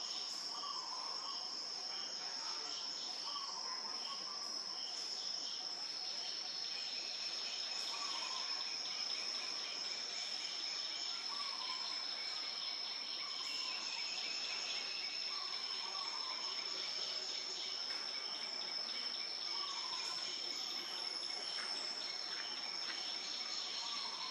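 A steady, high-pitched insect drone that does not let up. Over it a quick pulsing call repeats about twice a second for the first few seconds, and short lower chirps come every couple of seconds.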